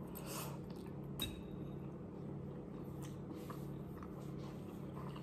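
A person eating noodles: a short slurp of a forkful at the start, then quiet chewing, with a light click about a second in, over a steady low hum.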